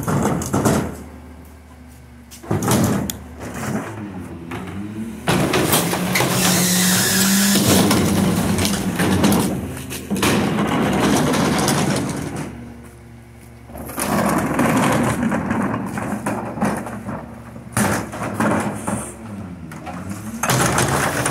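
McNeilus rear-loader garbage truck on an Autocar ACX chassis working a cart pickup. The engine revs up to drive the hydraulics as the rear cart tipper lifts and dumps wheeled trash carts into the hopper, with repeated bangs and clatter of plastic carts and falling trash.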